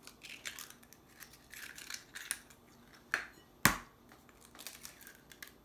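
Eggshells crackling as a cracked egg is pulled open over a small ceramic bowl, then a sharp knock about three and a half seconds in as the second egg is cracked on the bowl, followed by more light shell crackle.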